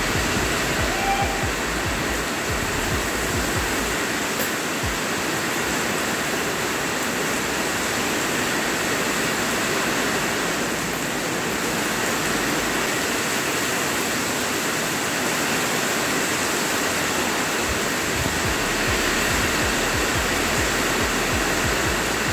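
Steady rain falling, an even unbroken hiss of water.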